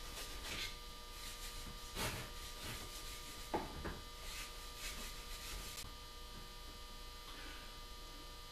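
Faint swishing strokes of a cloth rubbing oil stain into a maple rifle stock, stopping about six seconds in, over a steady electrical hum.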